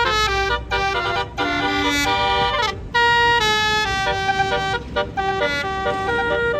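Bus telolet horn, a Basuri-type electric multi-trumpet musical horn, playing a fast melody in stepped notes, loud, with brief gaps between phrases.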